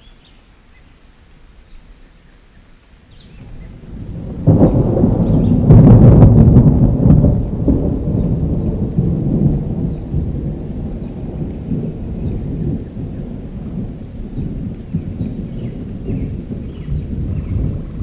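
A thunderclap: after a quiet start, a low rumble swells about four seconds in, peaks with a sharp crack, then rolls on and slowly fades.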